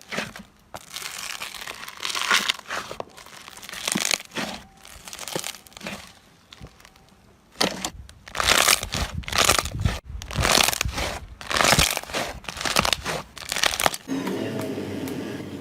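Slime being squeezed and pressed by hand, making crinkling, crackling sounds in irregular bursts. Near the end this gives way to a steady mechanical hum.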